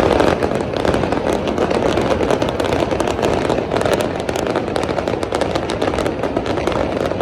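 Fireworks crackling nonstop: a dense rattle of rapid small pops over a steady rush.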